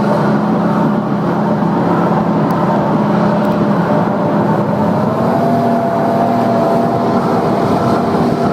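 Jet ski engine running steadily under way over a continuous rushing noise; its pitch rises slightly a little past halfway and then holds.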